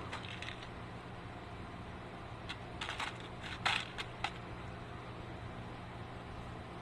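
Small metal jump rings clicking and clinking as they are picked out of their container, a handful of light clicks in the middle, over a steady low hum.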